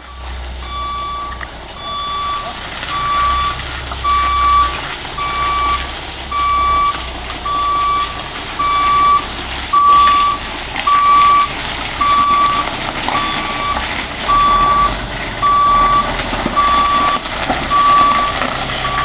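Heavy truck's reversing alarm beeping steadily, about once a second, each beep a single short tone, over the low rumble of the truck's engine as it backs up.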